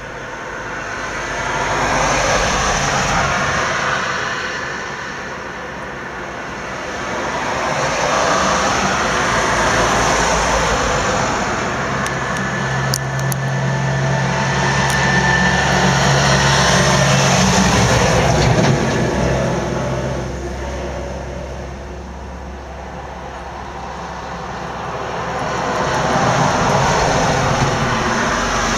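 Road traffic passing: the rushing tyre noise of vehicles swells and fades several times, with a steady low engine hum from a heavier vehicle about halfway through.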